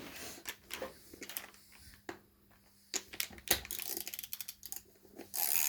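Irregular light metallic taps and clicks of a screwdriver and hammer working at a penny board wheel's bearing to knock it out, getting busier and louder about halfway through. A steady hiss starts near the end.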